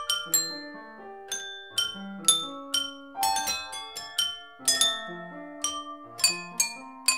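Homemade hammer-struck glass instrument of 48 wine glasses playing a tune with melody and lower accompanying notes. Each note starts with a sharp tap and rings on as a clear glassy tone that fades, several notes a second.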